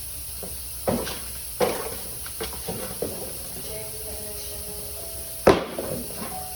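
A handful of short knocks and clunks, the loudest about five and a half seconds in, from tools and truck parts being handled during repair work, over a steady hiss.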